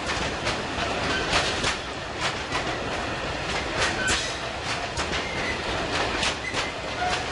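Open coal wagons of a freight train rolling slowly past, their wheels clacking over rail joints in regular pairs of clicks over a steady rumble, with a few faint brief wheel squeals.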